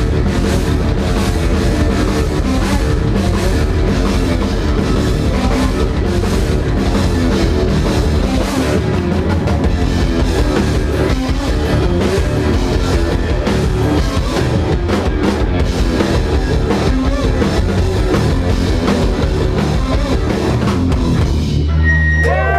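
Live rock band playing loud, with drum kit, guitars and bass. About a second before the end the song stops, leaving a held low note and a thin high tone ringing.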